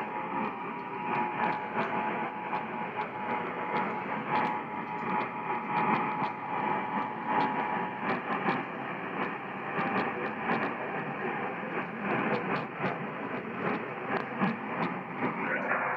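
Noisy AM radio reception: a steady hiss with frequent static crackles. Under the noise for about the first eight seconds is a faint steady two-tone signal, the Emergency Alert System attention tone, which then stops.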